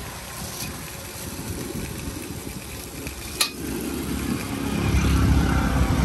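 Noodles frying in a wok with a steady sizzle and stirring, and one sharp clink about three and a half seconds in. A vehicle's low rumble swells near the end.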